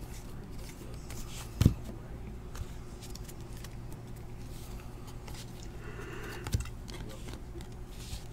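Trading cards being flipped through by hand: faint sliding and rustling of card stock with a couple of sharp taps, over a low steady hum.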